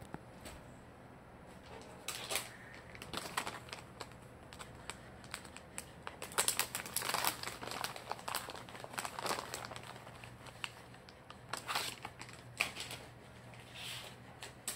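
A Shetland sheepdog chewing a crunchy snack. The crunches and crackles come irregularly, starting about two seconds in and thinning out near the end.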